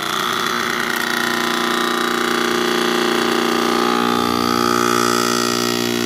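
Scroll compressor of a 2013 Carrier package heat pump running as defrost ends, its tone unsettled and shifting about four seconds in while the scroll plates stabilize. Taking this long to stabilize can also indicate the system is low on refrigerant.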